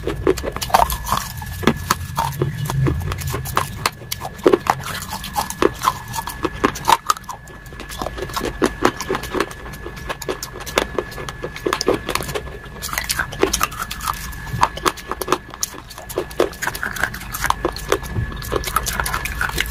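Close-miked chewing and wet mouth sounds: a dense run of quick clicks, crackles and lip smacks.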